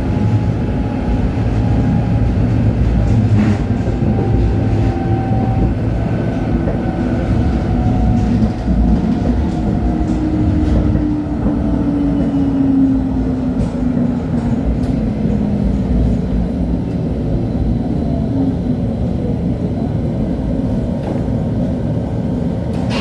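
LHB TW2000 light-rail car running on the rails, a steady rumble, with the drive's whine falling in pitch from about ten seconds in as the car slows.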